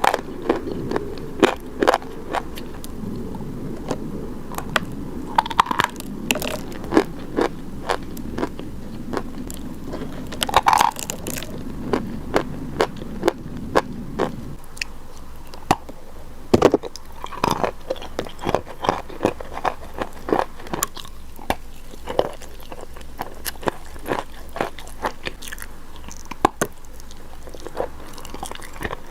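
Close-miked biting and chewing of crunchy baked chalk: irregular sharp cracks and crackles as pieces are bitten and crushed between the teeth.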